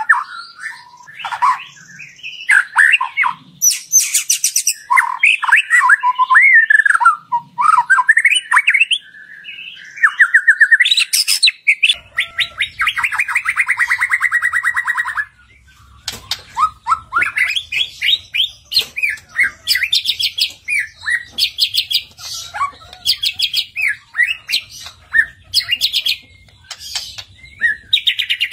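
White-rumped shama singing a fast, varied song of whistled phrases, pitch glides and rapid trills, with one long even trill about halfway through. A faint low hum sits under the second half. This is a pancingan recording, song played to prompt a caged shama to sing.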